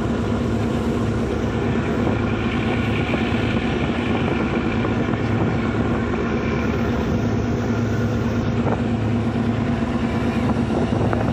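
Passenger river launch's diesel engines running steadily under way: an even, low, unbroken drone.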